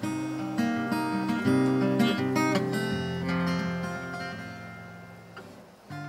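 Background music on acoustic guitar: plucked and strummed notes that ring out. It fades over the second half, and a new phrase starts near the end.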